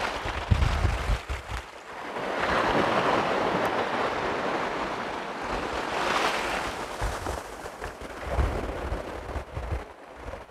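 Small waves breaking at the shoreline and washing up a pebble beach, the hiss of the wash swelling about two seconds in and again around six seconds. Gusts of wind rumble on the microphone near the start and again near the end.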